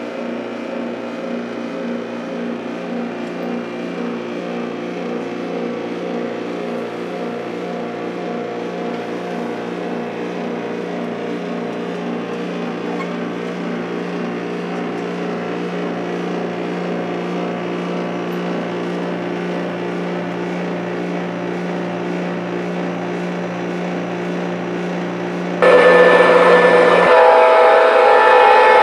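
Model diesel locomotive sound systems running a diesel engine idle: a steady hum with a low, evenly pulsing throb. About 26 seconds in, a loud diesel horn sounds, a chord of several tones held to the end, and the low throb drops away soon after.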